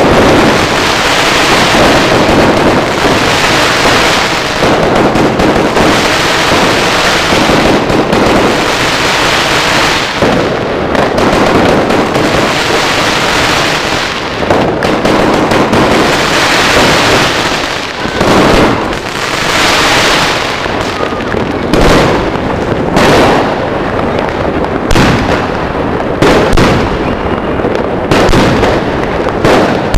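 Ground-launched fireworks going off at close range: a dense, continuous crackle of shots and bursts. In the last third it breaks up into separate loud bangs, about one or two a second.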